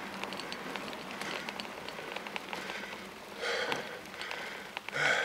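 Bicycle tyres rolling over paving and cobblestones: a steady crackling rumble scattered with small irregular ticks and rattles. Two short, louder noises come about three and a half and five seconds in.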